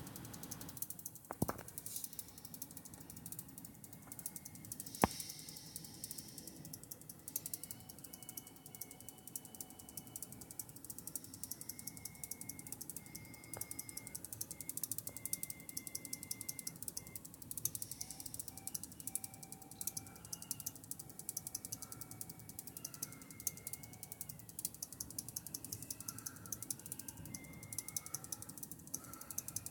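Computer power supply unit rattling: a fast, continuous run of clicks that the owner says does not come from the fan. Faint high whistling tones come and go over it, changing pitch from time to time.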